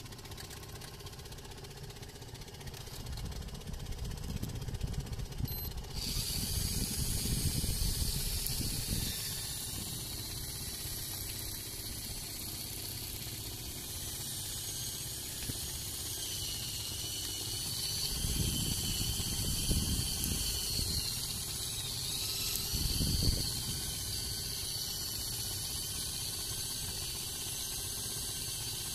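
An electric fishing reel winds against a fish on a bent rod, giving a high whine that switches on abruptly about six seconds in and wavers in pitch as the load changes. Wind buffets the phone microphone in low gusts, strongest in the first third and again near two-thirds through.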